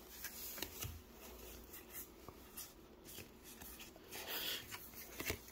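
Pokémon trading cards handled and sorted through by hand: faint scattered flicks and rustles as the cards slide past one another, a little louder just after four seconds in.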